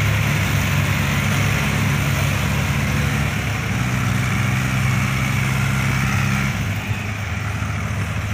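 Diesel farm tractors hitched in a line, running together under load as they haul a heavily loaded fodder trailer: a steady low engine drone that thins out near the end.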